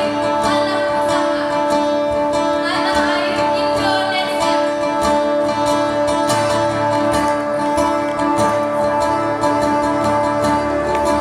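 Stage music: steady held drone tones with plucked strings, and a singing voice that rises and falls twice in the first half.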